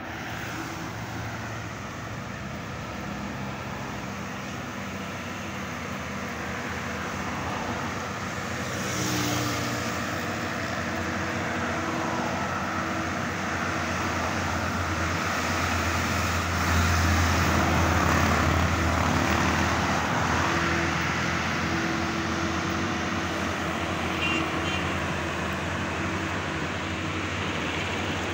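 Road traffic passing close by: cars, vans and decorated diesel trucks drive past. A truck engine's deep drone builds and is loudest about two-thirds of the way through.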